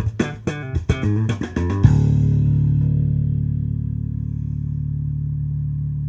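Bass-heavy music through a Warwick BC80 bass combo amplifier: a quick run of bass notes with sharp drum-like hits, then a final low note held and ringing out, slowly fading for about four seconds before it cuts off suddenly.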